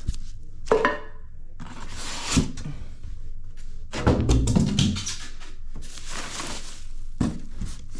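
Unpacking sounds: packaging rustling, broken by several dull thunks and knocks as parts are handled and set down.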